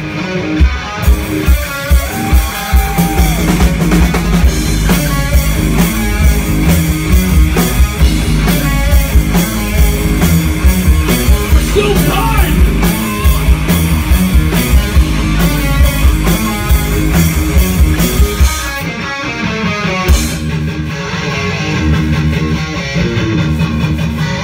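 Live rock band playing: electric guitars, bass guitar and a drum kit driving a steady beat. A little past three-quarters of the way through, the drums mostly drop out and the guitars and bass carry on at a lighter, thinner level.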